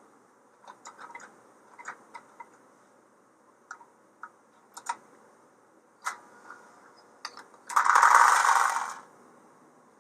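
Light metallic clicks and clatter of tinplate toy train cars being handled and set on the track, followed near the end by a loud rushing, whirring noise lasting about a second.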